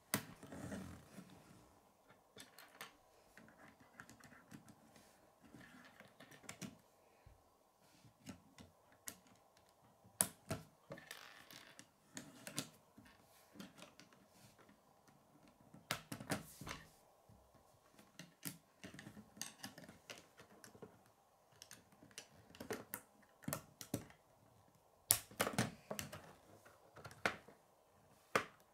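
Plastic K'nex rods and connectors clicking and snapping together as a frame is assembled by hand, with pieces knocking on a wooden tabletop. The clicks come irregularly, with a few louder clusters of snaps.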